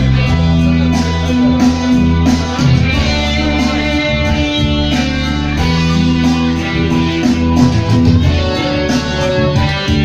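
Live band playing loud through a club PA: an instrumental passage with sustained bass notes changing every second or two under a melody line, without singing.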